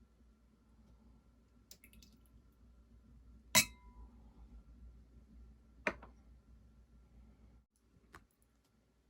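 Glassware clinking in a few sharp knocks: a light one early, the loudest about three and a half seconds in with a brief ring, another strong one about two seconds later, and a light one near the end.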